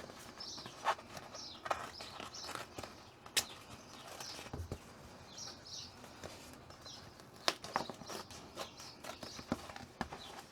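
Small birds chirping repeatedly, with scattered sharp clicks and taps from handling or working on material close by.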